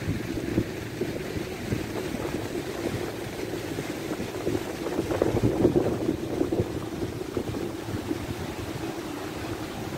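Sandstorm wind buffeting the microphone: a gusting low rumble that swells louder about halfway through.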